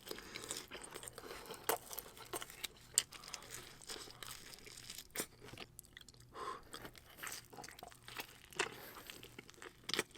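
Close-miked chewing of Margherita pizza: crisp crust crunching with irregular wet mouth clicks and smacks.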